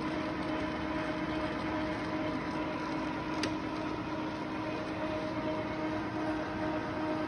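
Mori Seiki 15" x 32" engine lathe running under power in threading feed: a steady mechanical run with a constant whine from the headstock and feed gearing. One sharp click comes about three and a half seconds in.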